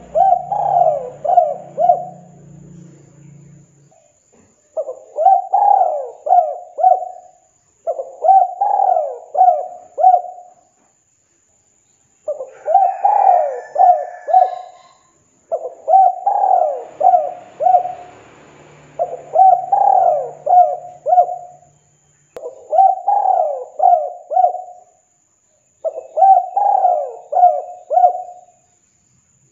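Spotted dove (tekukur) cooing: eight repeated phrases of about four to five coos each, one phrase every three to four seconds.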